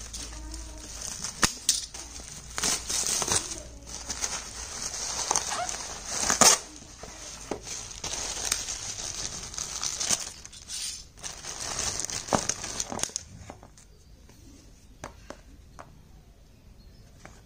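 Bubble wrap and plastic packaging crinkling and rustling as they are pulled off by hand, with one especially loud crackle about six seconds in. The rustling dies down about two-thirds of the way through, leaving a few light clicks and handling noises.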